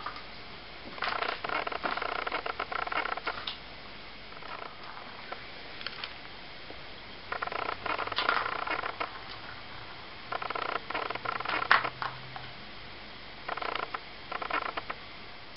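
Plastic ball rolling and rattling round the enclosed track of a cat ball-track toy as kittens bat it, in four bursts of a second or two each.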